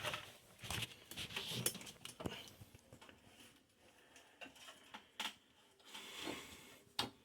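Faint rummaging through clutter: scattered light clicks, knocks and rustles as small objects are picked up and moved about, with a few sharper knocks near the middle and again near the end.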